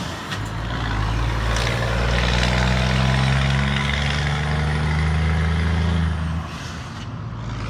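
Scania R420 truck's diesel engine running under load as it pulls a loaded flatbed trailer away, with a deep straight-piped exhaust note. The sound drops in level about six seconds in.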